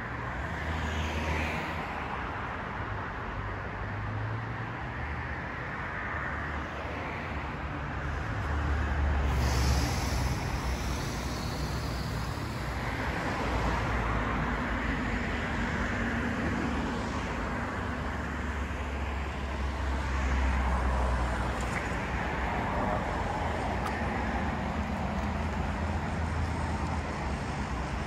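Road traffic: a steady rumble of cars going by on a city street, swelling and fading as vehicles pass, loudest about nine to ten seconds in and again around twenty seconds.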